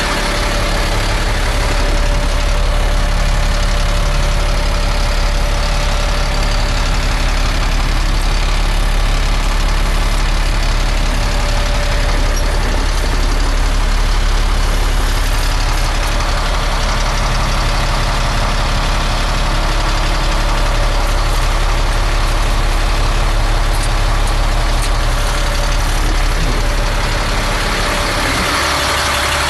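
A truck's Caterpillar diesel engine running steadily, heard from inside the cab of a Freightliner FL80 vacuum truck: an unchanging low rumble with a thin steady tone above it.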